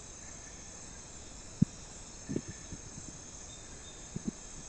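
Steady high-pitched chorus of night insects, with a few short low thumps: a sharp one about one and a half seconds in, and softer ones later.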